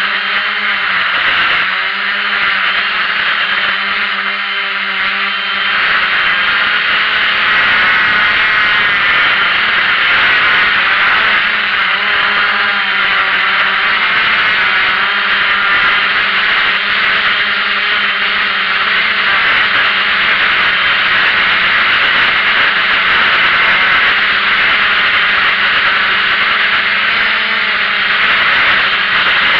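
Small camera drone's electric motors and propellers whirring steadily as heard through its own onboard camera, with the pitch wavering slightly as it climbs and holds position.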